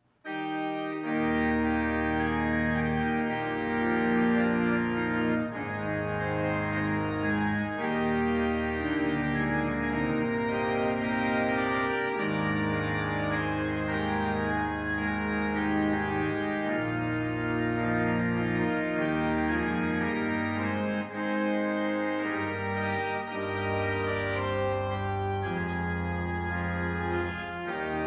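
Church organ playing recessional music in sustained chords that change every second or two, starting suddenly right after the dismissal.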